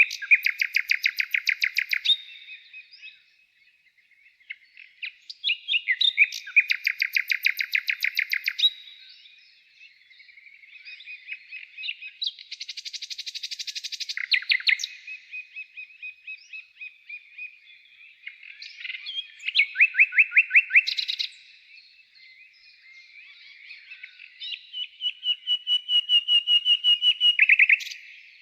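Songbird singing: phrases of fast, trilled notes, each lasting two to three seconds, repeated about five times with pauses between.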